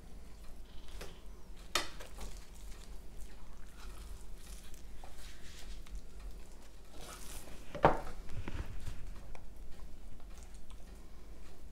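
Raw rack of pork spare ribs handled on a cutting board: soft rubbing and patting, a sharp knock about two seconds in, and a louder thump about eight seconds in as the rack is turned over onto the board.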